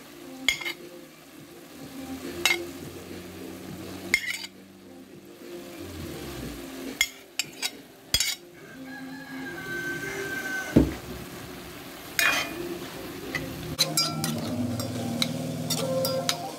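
A metal spoon stirring minced chicken frying in a metal pot, scraping the bottom and clinking against the pot's side now and then, over a faint sizzle.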